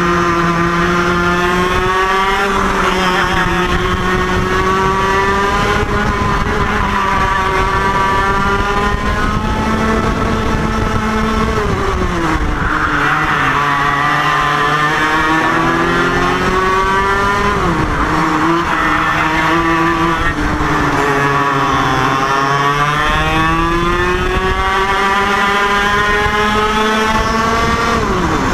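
IAME KA100 single-cylinder two-stroke kart engine at racing speed. Its pitch climbs steadily on the straights and drops sharply three times as the driver lifts off for corners.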